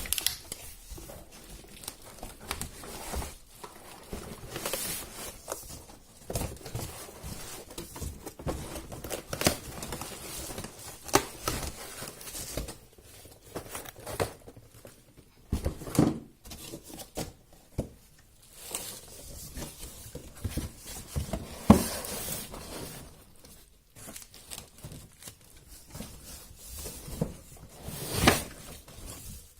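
Packaging being handled and opened: crinkling and tearing with irregular rustles and knocks.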